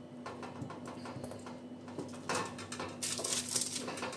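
Wooden spoon scraping a bowl and dropping spoonfuls of wet cauliflower-crumb and egg mixture onto a parchment-lined baking tray: soft clicks and taps, with louder scrapes and paper rustling from about halfway in.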